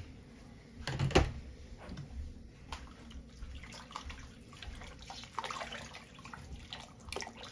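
Liquid brine sloshing and splashing in a large stockpot as it is stirred with a spoon. The splashes are irregular, and the loudest comes about a second in.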